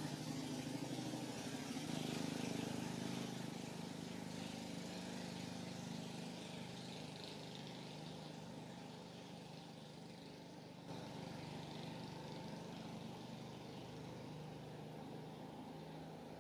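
Steady low mechanical hum, like an engine running at idle, with an even hiss over it; the level steps up slightly about eleven seconds in.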